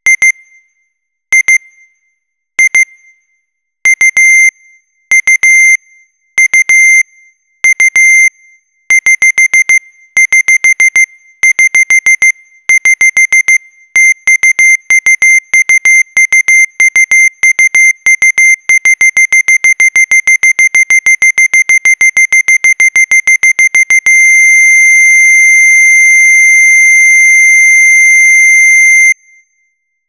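Loud digital alarm beeping: a high electronic beep in short bursts of quick pulses, the bursts growing longer and closer together until the beeping is almost constant. It then turns into one unbroken tone for about five seconds, which cuts off suddenly near the end.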